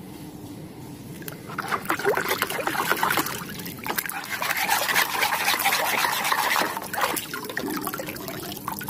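Water sloshing and splashing in a plastic tub as a plastic toy rifle is swished and scrubbed through it by hand. The splashing starts about a second and a half in and eases off near the end.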